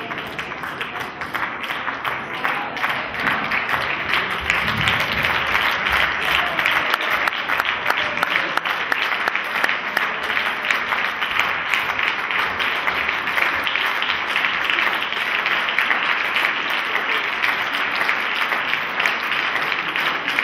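Audience applauding a curtain call, many hands clapping together; it swells over the first few seconds and then holds steady.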